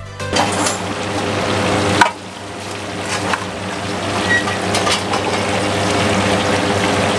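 Chicken katsu cutlets deep-frying in a large wok of hot oil: a steady sizzle, with a single metal clank about two seconds in as fried pieces are lifted out with a wire strainer and set on a tray.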